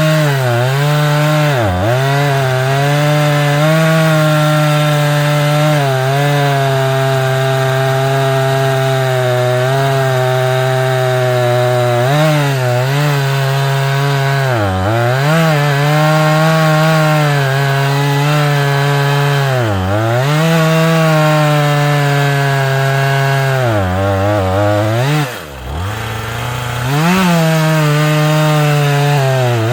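Chainsaw running at high revs through wood, its engine note sagging briefly under load several times and falling off about 25 seconds in before revving back up.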